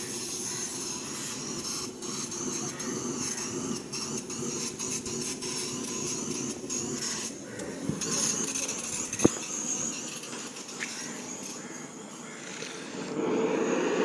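Steady hiss and crackle of a steel bowl of grease melting and starting to boil over an open fire, with scattered small pops and one sharp pop about nine seconds in. A louder rush near the end.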